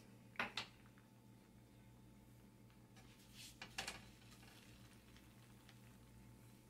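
Near silence with a faint steady hum, broken by a couple of soft clicks about half a second in and a few faint knocks and rustles around four seconds in, from a metal spatula being set down and a flour tortilla being handled on a dry griddle.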